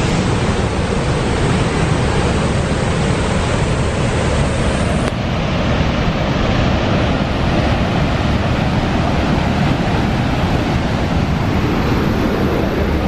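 Horseshoe Falls at Niagara: a loud, steady rush of a huge volume of falling water crashing into the gorge.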